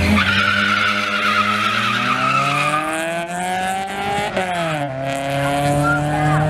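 Two drag cars, one of them a Honda Civic hatchback, launching off the start line. Tyres squeal for the first few seconds while the engines rev up, the pitch drops at gear changes about four to five seconds in, and the engines rise again as the cars pull away.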